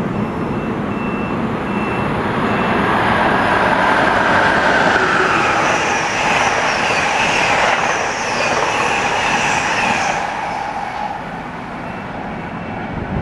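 Amtrak Northeast Regional passenger train, an ACS-64 electric locomotive with Amfleet cars, passing through the station at speed: a rush of steel wheels on rail builds over the first few seconds with a high-pitched ring from the wheels, then falls away after about ten seconds.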